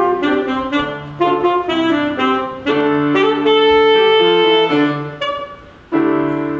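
Alto saxophone playing a melody with piano accompaniment: a run of short separate notes, then long held notes, and near the end a final held note and chord that slowly fade.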